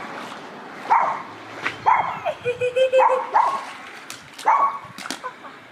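A dog barking, short repeated barks roughly once a second, with a few sharp clicks between them.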